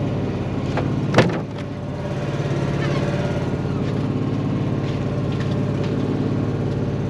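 A boat's engine idling steadily, with a single sharp knock about a second in.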